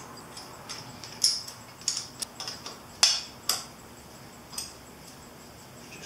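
Hand wrench clinking and ticking on metal as the rubber-mounted turn-signal nuts are snugged up on a motorcycle's front end. The clinks are irregular, loudest about a second in and around three seconds in, and die away a little past the middle.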